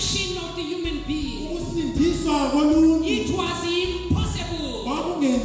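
A man preaching loudly over a microphone and PA in a chanted, sing-song cadence, his voice rising and falling in quick arcs, with steady held tones running underneath.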